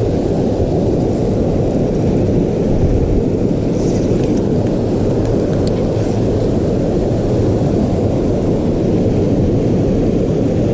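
Creek water rushing steadily, a loud, muffled low rush with no let-up.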